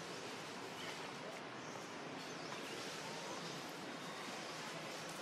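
Steady outdoor ambience, an even hiss, with a few faint, short bird chirps scattered through it.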